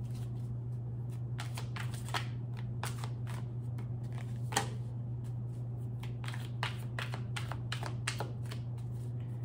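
Tarot cards being shuffled by hand: an irregular run of short, crisp card snaps and slides over a steady low hum.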